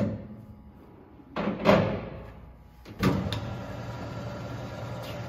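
Clausing 2500 metal lathe: a few sharp metallic clunks as it is put into gear, then about three seconds in the spindle starts and runs with a steady hum at low speed.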